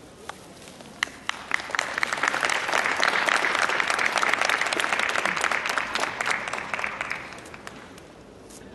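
Audience applauding: a few scattered claps about a second in, swelling into full applause, then dying away near the end.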